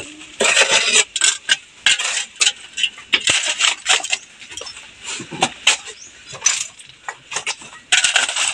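Steel spades digging into stony, gravelly soil: the blades scrape and chink against stones in repeated, uneven strokes, about one or two a second.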